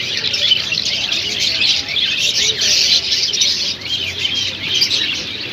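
A crowd of small caged ornamental birds chirping and twittering all at once, a dense, steady chorus of many overlapping high calls.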